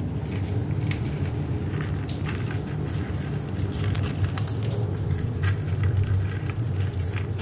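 A kitten crunching dry kibble, with pellets clicking against a plastic tray in irregular small crackles, over a steady low rumble.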